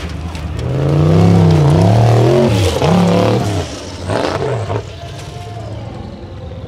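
Formula Offroad buggy's high-powered engine revving hard, its pitch rising and falling several times in quick succession as the wheels fight for grip on the steep sand hill, then dropping to a quieter steady running about four to five seconds in.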